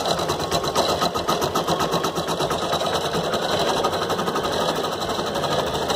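Brother Innov-is BP1430L computerized embroidery machine running, stitching a design with a steady, rapid, even rhythm of needle strokes.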